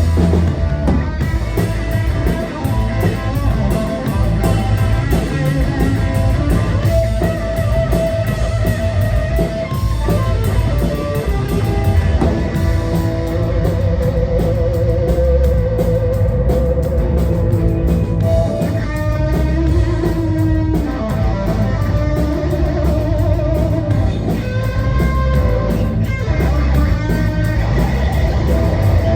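Live rock band playing an instrumental passage: distorted electric guitars with held, bending lead notes over bass guitar and drums.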